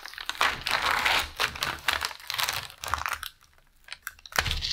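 Paper sleeve and plastic top film being pulled off a microwaved ready-meal tray, crinkling and crackling for about three seconds, then a short burst of rustling near the end.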